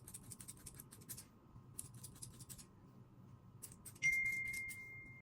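Small, quick scratchy scrapes and snips from hands working on a wig. About four seconds in comes a sudden louder sound with a single ringing tone that slowly fades.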